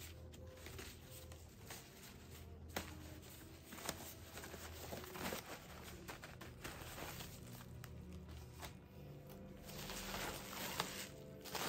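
Paper gift bags and bubble wrap rustling and crinkling as they are handled, with a few light clicks and knocks, over a faint steady low hum. The crinkling grows denser near the end as the bubble-wrapped packages are moved.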